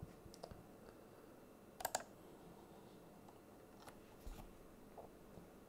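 A few scattered clicks at a computer, including a quick double click just before two seconds in, over near-silent room tone.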